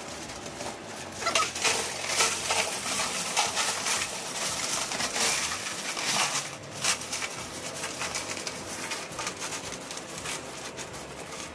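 Crushed ice poured from a large plastic bag into a drum cooler, clattering over the metal cooling coils as a dense rattle, with the bag rustling. It eases off after about seven seconds as the ice is pushed around by hand.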